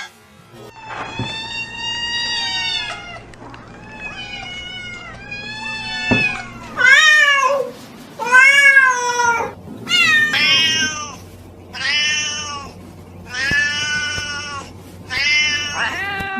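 Cats meowing: a string of about ten separate meows, some long and drawn out, others short, each rising and falling in pitch.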